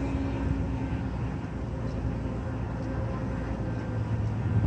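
Steady low engine drone of heavy construction machinery working, with a faint steady hum running through it.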